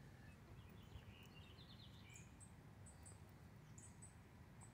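Near silence: faint outdoor ambience with a low background hum and faint high bird chirps, repeating through the second half.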